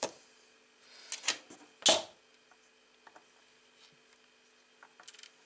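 A few knocks and clicks of small parts being handled on a wooden workbench, the loudest a sharp knock about two seconds in. A spool of solder is set down and wire connectors are plugged together.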